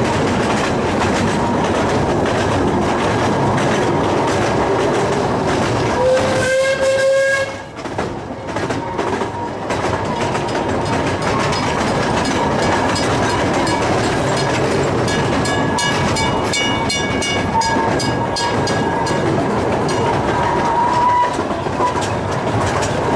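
Miniature 457 mm gauge steam train running, heard from an open passenger car: steady rumble and clatter of the small cars on the rails. A short whistle blast of about a second and a half sounds about six seconds in, and a thin high whine rises over the running noise for several seconds in the second half.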